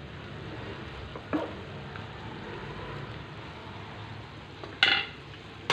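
French beans and chana dal sizzling in an oiled pan while being stirred with a spatula, a steady hiss, with a short click about a second and a half in and a louder sharp knock near the end.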